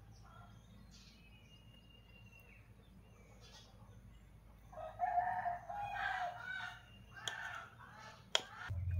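A rooster crowing once, a long call of several parts starting about five seconds in, with fainter bird calls before it. Two sharp clicks follow near the end.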